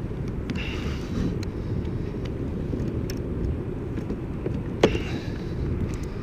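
Steady low wind rumble on the microphone, with scattered faint clicks and one sharper click about five seconds in.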